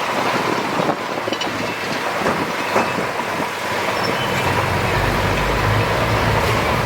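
Crawler bulldozer working: steel tracks squealing and clanking over a running diesel engine, the engine's low rumble growing louder about two-thirds of the way through.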